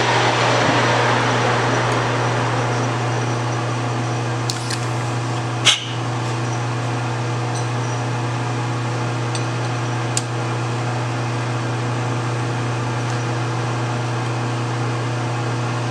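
Metal lathe spindle winding down after a boring cut in a brass bushing, its whirr fading over the first few seconds over a steady low hum. A sharp metallic click comes about six seconds in and a lighter one near ten seconds.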